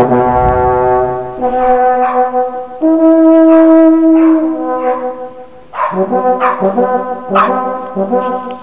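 Brass fanfare intro music: long held brass chords that shift every second or so, turning about six seconds in to shorter notes repeated in a steady pulse.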